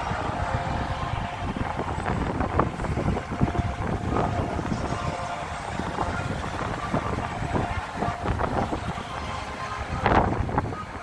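Cars passing on the road, with strong wind buffeting the microphone into a steady rumble. A brief louder burst comes near the end.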